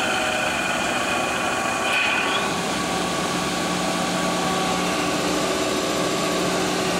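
Schaudt E450U1000 cylindrical grinder running, a steady machine hum with several steady whining tones. About two seconds in, the higher whine drops away after a brief rising note, and a lower steady hum carries on.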